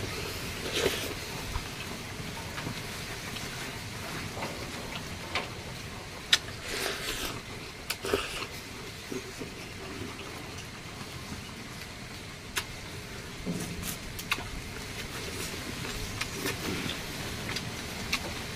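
A man eating noodles in broth with rice: a few short slurps and chewing, with some sharp clicks, over a steady background hiss.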